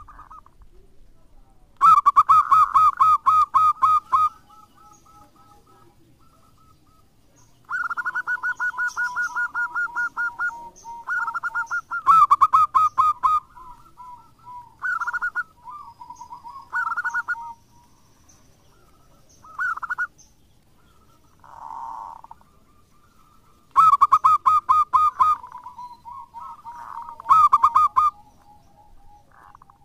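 Zebra dove (local perkutut) singing: phrases of rapid staccato cooing notes, about ten a second, each phrase a second or two long, repeated with short pauses between. The loudest phrases come near the start, in the middle and near the end.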